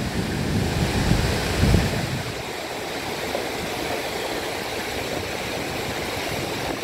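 River water rushing and splashing around a Toyota Land Cruiser pickup's wheels as it wades across. A low rumble lies under it for the first two seconds, then only the steady rush of water remains.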